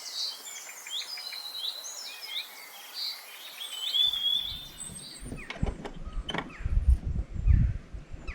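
Several songbirds singing in whistled, rising and falling phrases. About four seconds in, the sound cuts abruptly to low rumbling thumps and sharp clicks, loudest near the end, with fainter bird chirps over them.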